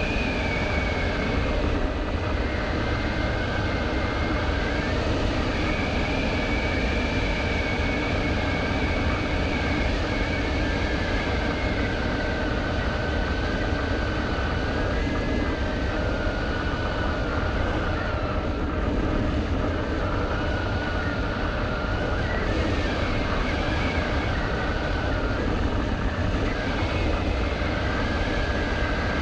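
Quadcopter drone's motors and propellers whining steadily, over a constant low rumble. The whine falls in pitch over the first couple of seconds, then drifts up and down as the drone manoeuvres.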